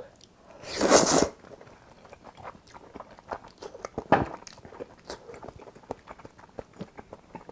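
A loud slurp of noodles about a second in, then close-miked chewing of noodles and ham with many small wet mouth clicks.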